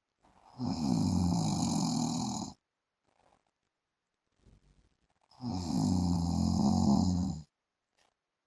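A man snoring in his sleep: two long snores of about two seconds each, roughly five seconds apart, with faint breathing between them.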